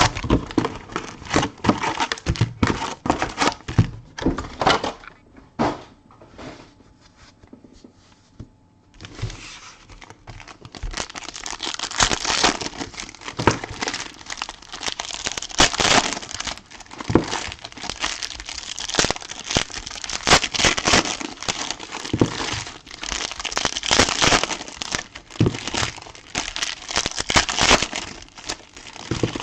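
Plastic wrapping on a box of trading cards and its packs being torn open and crinkled by hand: dense crackling and tearing, thinning out for a few seconds, then steady heavy crinkling from about nine seconds in.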